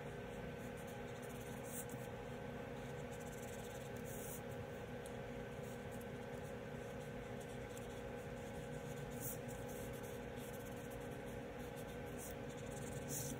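Felt-tip marker scratching and rubbing on paper as an area is colored in, over a faint steady hum.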